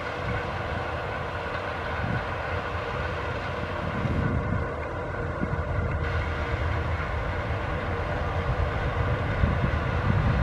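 CLAAS Lexion combine harvester running under load while cutting and threshing field beans: a steady mechanical drone, with a constant whine over a low, rumbling engine note.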